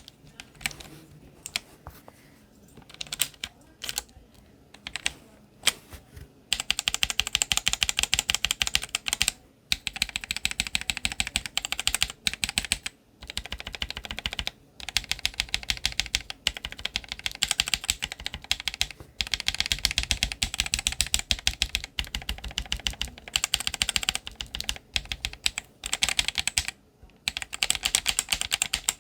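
Akko mechanical keyboard switches, Vintage White and Radiant Red, lubed and unlubed, being pressed for a sound test. A few separate clacks come first, then about six seconds in a fast, continuous run of keypress clacks, broken by a few short pauses.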